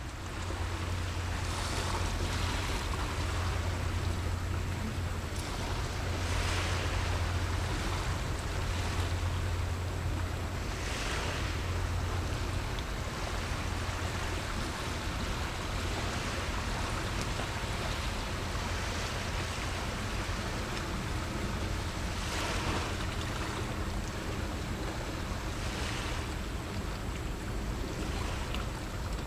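Small waves washing in and out at the water's edge, a soft swell of noise every few seconds, over a steady low hum.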